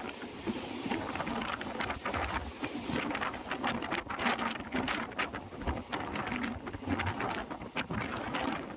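Passenger train running, heard from on board: a steady rush of noise with irregular rattling and clattering.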